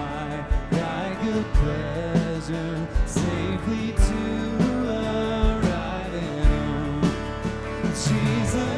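Live worship band playing a song with singing. Sustained chords sit over a bass drum beat that falls about once a second.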